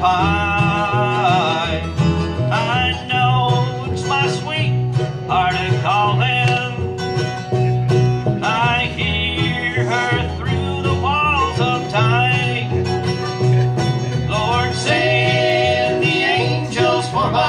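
Acoustic string band playing an instrumental break in bluegrass style: mandolin, acoustic guitar and upright bass, with quick sliding melody notes over a steady bass line.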